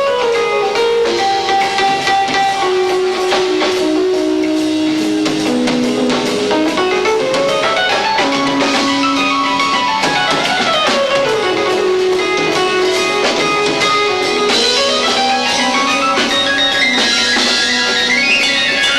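Live rock band playing loud, recorded through a camcorder's built-in microphone, with drums under a lead line that runs down and up in fast stepwise scales several times.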